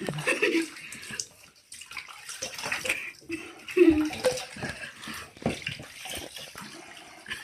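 Shallow bathwater splashing and sloshing as hands scrub a wet puppy in a bathtub, in irregular splashes. Two short vocal sounds cut in, one near the start and a louder one about four seconds in.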